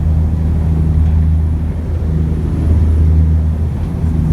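Ship's engine droning steadily with a deep, even hum.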